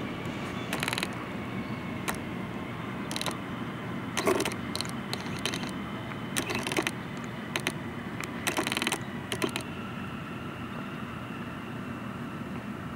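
Bombardier R179 subway train rolling away along the track: a steady low rumble with groups of sharp clacks as its wheels cross rail joints. The clacks stop about three-quarters of the way through and the rumble carries on.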